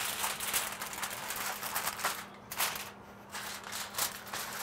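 Aluminum foil crinkling and rustling in several short crackles as a sheet is handled and folded loosely over food.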